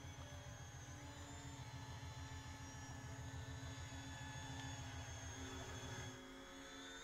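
Electric motors and propellers of an E-flite Convergence VTOL RC plane in flight: a steady whir with a fast, low fluttering beat that drops away about six seconds in.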